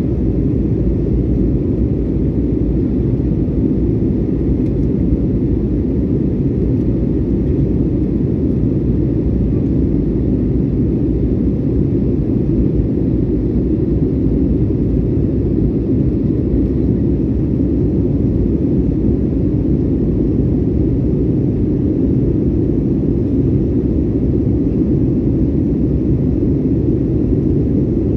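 Steady low noise of a jet airliner's engines and rushing air, heard inside the passenger cabin during the climb after takeoff.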